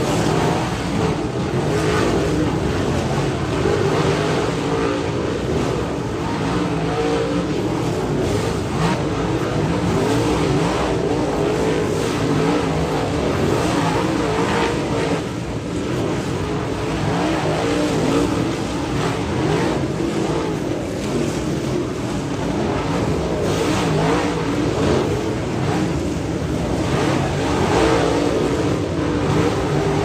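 A pack of dirt late model race cars with V8 engines running hard together through a turn, many overlapping engine notes rising and falling as the cars pass, with no let-up.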